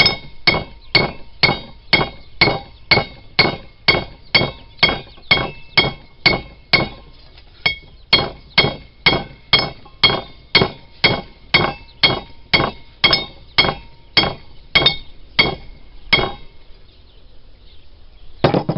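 Blacksmith's hammer striking hot rebar on an anvil in a steady rhythm of about two blows a second, each with a ringing clink, as the steel is flattened out. The hammering stops a couple of seconds before the end, with one more strike near the close.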